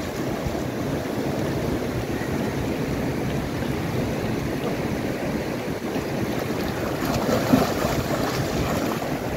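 River water rushing steadily, with swimmers splashing in it and a brief louder splash near the end. Wind rumbles on the microphone.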